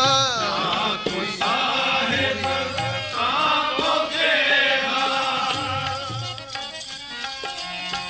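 Sikh kirtan: a drawn-out sung phrase with wavering, gliding notes over harmonium and tabla. In the second half the voice falls back and the instruments carry on, with soft low drum strokes.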